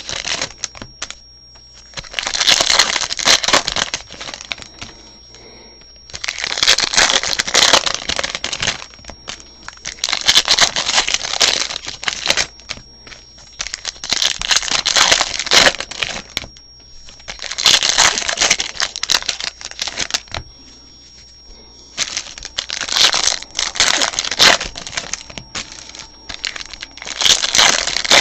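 Trading-card pack wrappers being torn open and crinkled, one pack after another: about eight bursts of crinkling and tearing, each two to three seconds long, with short pauses between them.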